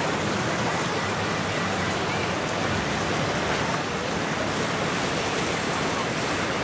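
Steady rushing sound of waves and churning water.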